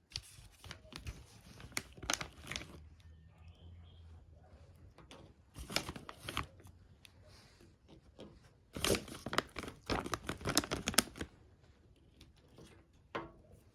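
Packaging being crinkled and torn while the dog's treat is got out, in several rustling spells, the loudest from about nine to eleven seconds in.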